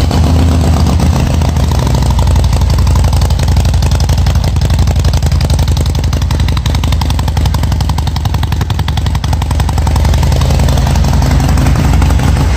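Harley-Davidson V-twin engine running at a steady idle just after start-up, through mufflers whose baffles have been drilled through for a louder Harley sound. The air intake is loud alongside the exhaust.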